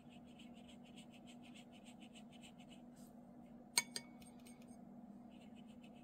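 Watercolour brush scrubbing wet paint onto paper in faint, quick strokes, about five a second. The strokes pause for a sharp clink with a short ring about four seconds in, then start again. A low steady hum runs underneath.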